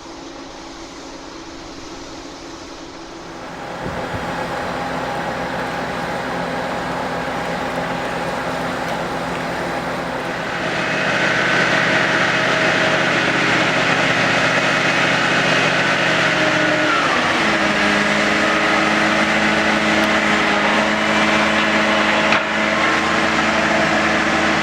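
Heavy diesel engine of a foundation drilling rig running under load. It grows louder in two steps, about four and about eleven seconds in, and its note drops a little about two-thirds of the way through.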